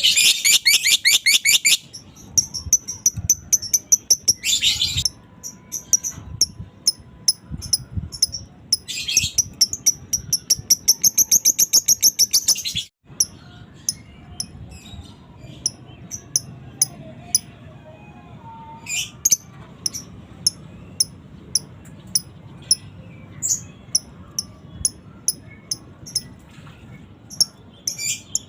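Lovebird chattering: long, rapid trains of high chirps in bursts of a few seconds, the 'ngekek' call. About halfway through, after a brief break, it changes to single sharp chirps repeated every fraction of a second.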